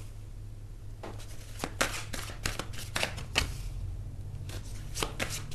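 Tarot cards being shuffled by hand: an irregular patter of soft card slaps and clicks that pauses briefly about two-thirds of the way through, over a low steady hum.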